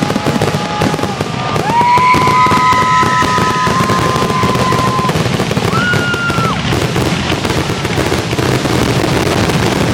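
Fireworks going off in a dense, continuous barrage of bangs and crackling. Long steady high tones sound through the middle, one for about three seconds and a shorter one just after it.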